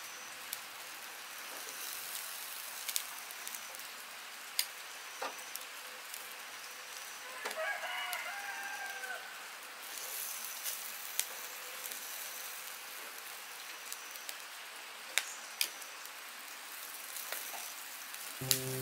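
Chicken feet sizzling over charcoal on a wire grill, a steady hiss with scattered sharp crackles and clicks of metal tongs. A rooster crows once about halfway through.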